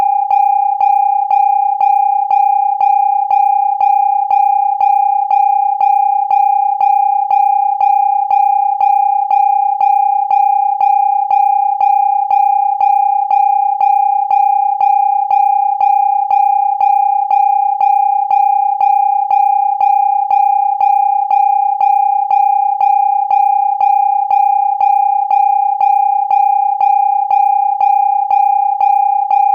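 Electronic emergency alarm sounding a steady beeping warning tone: one high-pitched tone pulsing evenly, about twice a second.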